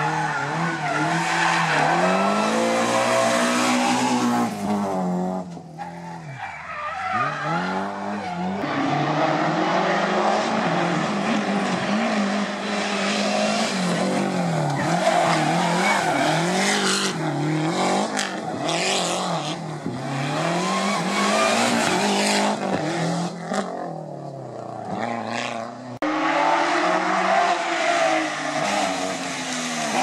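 Historic rally cars taken hard through a hairpin one after another, engines revving up and dropping back again and again through gear changes, with tyres squealing. The sound changes abruptly twice as one car's pass gives way to the next.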